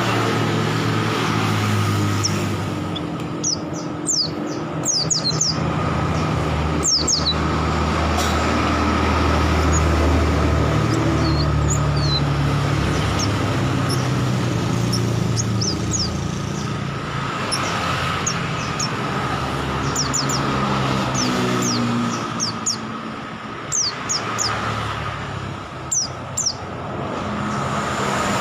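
White-eyes (pleci) giving short, high, quick chirps in scattered clusters, over a steady rumble of road traffic and a constant high hum.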